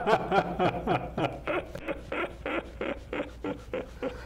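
Men laughing softly: a run of short, breathy chuckles, about three or four a second, fading slightly.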